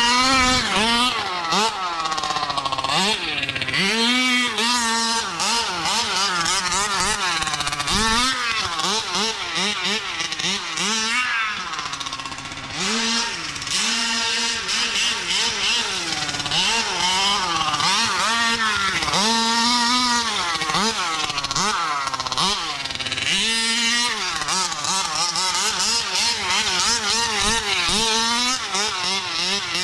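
Taylor 50cc two-stroke engine of a 1/5-scale Kraken Vekkta RC buggy being driven hard, revving up and dropping back over and over, its pitch rising and falling every second or two as the throttle is opened and closed.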